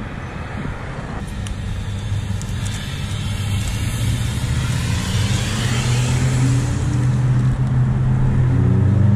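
Road traffic with a vehicle engine running close by: a low, steady engine hum that grows louder through the second half, over general road noise.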